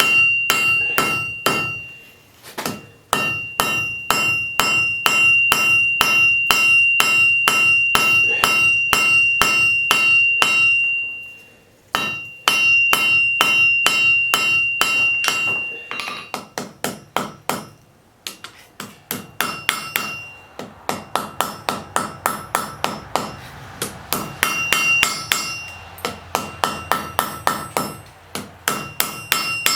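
Blacksmith's hand hammer striking hot iron on an anvil in steady runs of about three blows a second, each blow ringing. There are a few short pauses between runs, and the blows in the second half are lighter with less ring.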